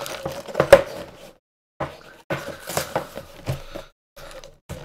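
Cardboard Lego box being handled on a wooden table and its flap torn open, rustling and scraping with scattered knocks, the sharpest about three-quarters of a second in.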